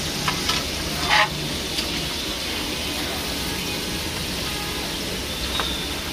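Battered chicken pieces deep-frying in a large wok of hot oil: a steady, even sizzle. A metal skimmer clinks against the pan a few times in the first second and a half, loudest about a second in.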